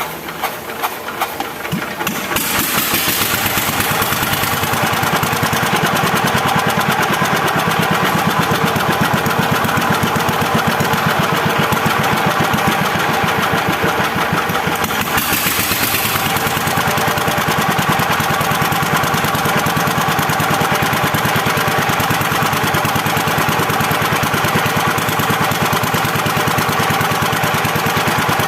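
Single-cylinder KOYO 25HP diesel engine on its test run after the cylinder head was refitted and the valves adjusted. It picks up with separate beats, comes up to speed about two seconds in, then runs steadily.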